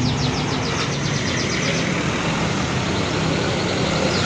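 Large bus's engine running with steady road and traffic noise close by.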